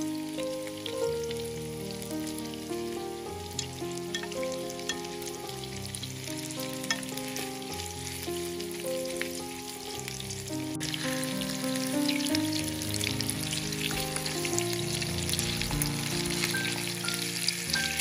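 Meat-and-potato patties frying in oil in a pan, a steady crackling sizzle as they are turned over with a spatula and fork. Background music of held notes plays along with it.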